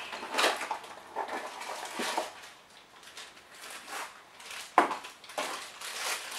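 Small cardboard blind box being torn open by hand, then the foil bag from inside it crinkling as it is handled. There are a few short rustles and a sharp crackle about five seconds in, the loudest.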